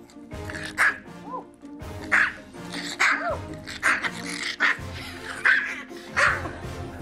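Pomeranian barking sharply and repeatedly, about seven barks in a row, protesting at being put into his crate and lunging at his owner. Background music plays underneath.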